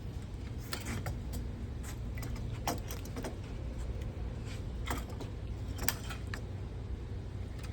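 Scattered light clicks and taps of metal electrical hardware being handled, such as screws, switches and wires, over a steady low hum.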